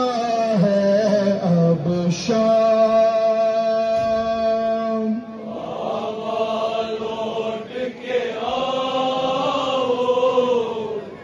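Nowha, a Shia lament, chanted by a male reciter holding long notes. About five seconds in, the crowd of mourners joins in chorus.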